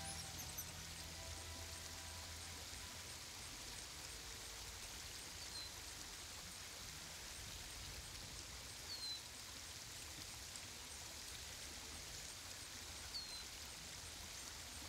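Faint, steady outdoor ambience: an even hiss with three faint, short, high chirps spread through it. The last notes of soft music fade out in the first second or two.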